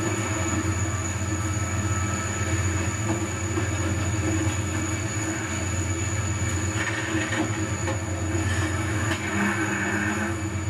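Several diesel-electric freight locomotives running together, passing slowly at close range with a steady low engine rumble. Wheel squeal from the rails rises briefly about two-thirds of the way through and again near the end.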